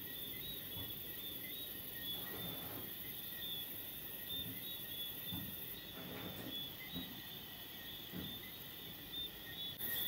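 Night insects chirping steadily in a high-pitched, pulsing trill, with a few soft rustling bumps close by.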